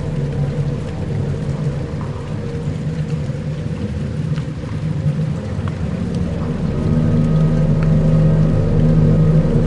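Dark ambient music: low sustained drones over a rumbling, rain-like texture. It swells about seven seconds in, when a faint higher tone joins.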